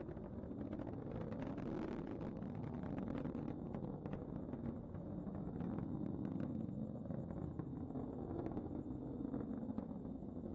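Atlas V rocket in powered ascent, its engine noise heard from the ground as a steady low rumble with a crackle through it.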